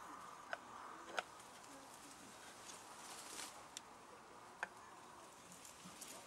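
Knife blade being worked in circular, rocking strokes on a wet Japanese water stone to sharpen a convex edge: a faint, gritty scraping of steel on stone, with a few sharp ticks.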